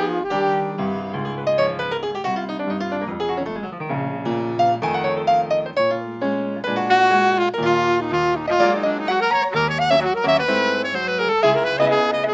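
Alto saxophone playing a flowing jazz melody over grand piano accompaniment, in a saxophone and piano duo.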